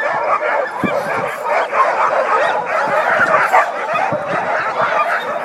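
Many harnessed sled dogs barking, yipping and whining at once in a dense, unbroken chorus, with no pause in the din.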